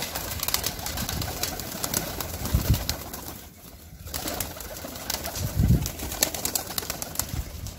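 A flock of domestic fancy pigeons cooing, with scattered sharp wing flaps as the birds come out of the loft.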